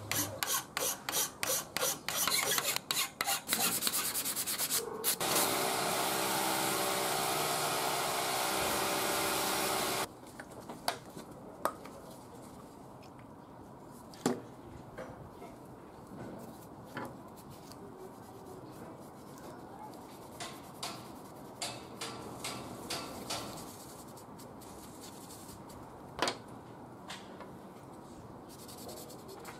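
A hand file rasps in quick repeated strokes, then a steady grinding noise runs for about five seconds. After that comes quieter rubbing of a cloth on a wooden knife handle, with a few light knocks.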